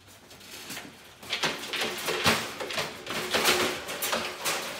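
Wire dog crate rattling and clanking as an excited dog scrambles up inside while the door is unlatched, with short high dog whines mixed in. The rattling starts about a second in and runs as a dense string of clicks and clanks.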